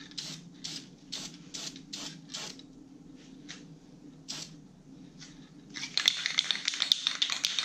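Aerosol spray-paint can spraying in short bursts of hiss, two or three a second, for the first few seconds. A louder, denser stretch of hissing with sharp clicks follows near the end.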